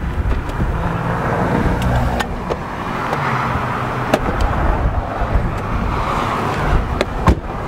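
Strong storm wind buffeting the microphone in a steady, heavy rumble, with a few sharp ticks scattered through it.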